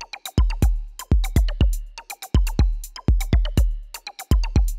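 Electronic background music with a drum-machine beat: sharp hits in quick groups of two to four, each with a deep bass boom.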